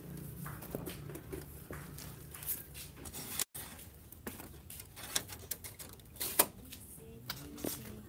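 Scattered light clicks, taps and rustles of a songbird fluttering and hopping about in a wire cage as the cage is handled, with one sharper tap about three-quarters through.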